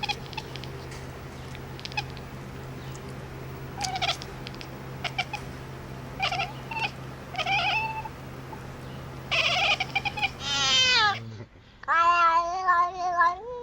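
An animal calling: a few short cries, then a loud call that falls in pitch, and near the end a long wavering call, over a steady low hum that stops about eleven seconds in.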